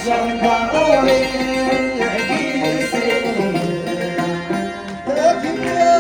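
Traditional folk music with a melody that bends and shifts in pitch, likely sung, over instrumental accompaniment.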